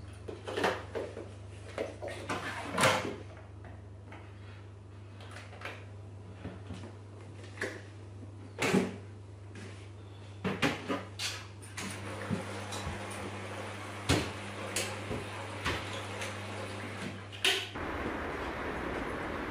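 Clicks and knocks from loading a front-loading washing machine: the detergent drawer is handled and a plastic detergent bottle is set down, over a steady low hum.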